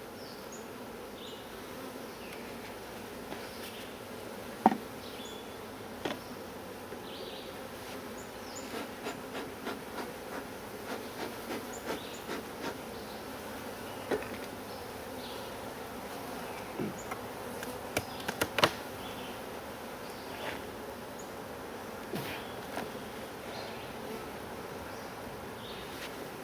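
Honey bees buzzing in a steady hum around an open hive, with a scattering of short sharp clicks and knocks, the loudest about five seconds in and again past the middle.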